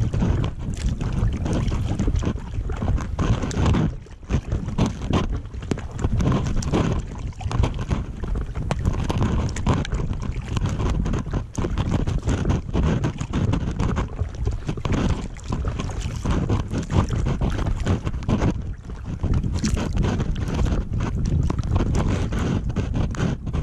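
Wind buffeting the microphone of a camera mounted low on an inflatable kayak, a loud uneven rumble that rises and falls, with water lapping against the kayak's hull.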